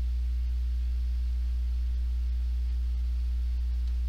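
Steady low electrical mains hum with a few fainter higher overtones, unchanging throughout.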